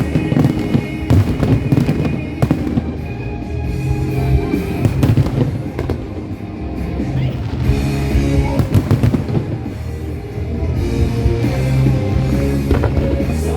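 Fireworks going off in a dense, continuous string of bangs over loud music.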